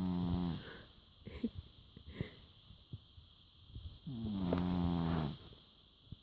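Domestic cat snoring fairly loudly: one pitched snore fades out just after the start and another comes about four seconds in, lasting just over a second.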